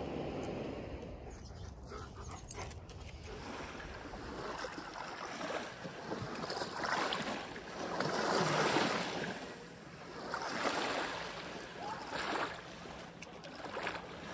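Small waves lapping onto a pebbly lake shore, washing in and out in swells every second or two from a few seconds in.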